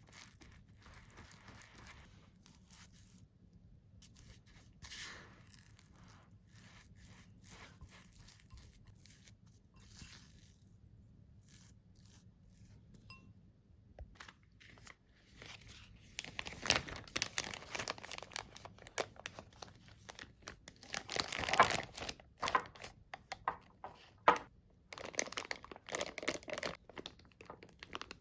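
Crinkly wrapping material being handled: faint rustles at first, then quick, irregular crinkling and rustling through the second half, loudest about two-thirds through.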